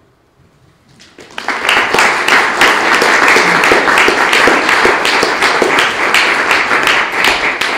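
Audience applauding: many hands clapping. It starts about a second in and holds steady.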